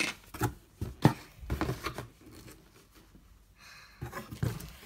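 Handling noises: scattered light clicks and a soft rustle as small plastic toy figures are picked up and moved about.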